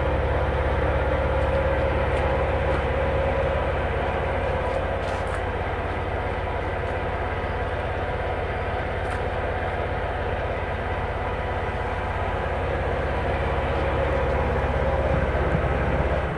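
A motor-driven machine running steadily with a low, rapidly pulsing hum, dying away near the end.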